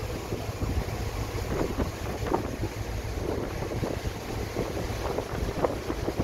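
Wind buffeting the microphone on the open deck of a boat under way, gusting unevenly over the rush of lake water past the hull.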